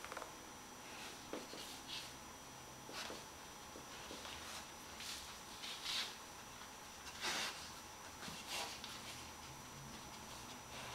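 A dog's quiet sniffing and breathing, a string of short, soft puffs at irregular intervals, with a slightly longer one about seven seconds in.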